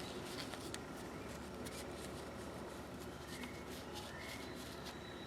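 Faint handling sounds as polishing compound is cleaned off a pair of steel pliers: light rubbing with scattered small clicks.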